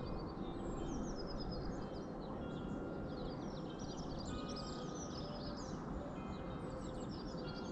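Small songbirds chirping and singing: many quick, high, falling notes one after another, over a steady low background rumble.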